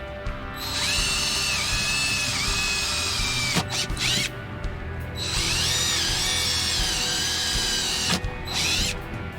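Power drill boring into a wooden pedalboard: two long runs of a high motor whine with a short pause between, the pitch dipping and wavering as the bit loads in the wood.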